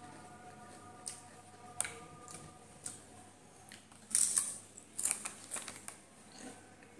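Thin fried potato chips (Bingo) crunched between the teeth while being eaten: irregular crisp crunches and crackles, the loudest burst about four seconds in and another run of sharp crackles around five seconds.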